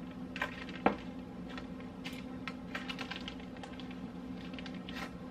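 Plastic zip-top freezer bag crinkling and crackling as frozen toast slices are pushed into it: a run of small irregular clicks and taps, with a sharper tap about a second in. A steady low hum runs underneath.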